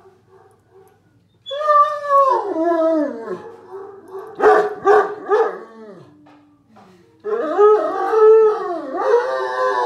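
Great Dane howling: long howls that slide down in pitch, three short yips around the middle, then more howling from about seven seconds in.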